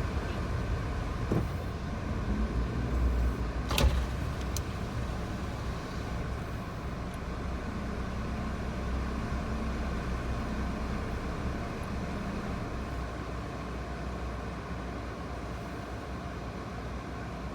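Low steady rumble of a Nissan Moco's engine and running gear heard inside the cabin, with a sharp click about four seconds in.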